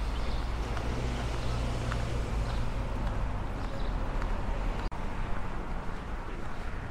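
Outdoor street ambience: a steady low rumble of car traffic on a town street. The sound briefly cuts out about five seconds in.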